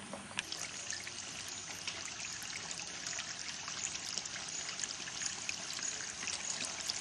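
A steady trickling, water-like hiss dotted with many small ticks.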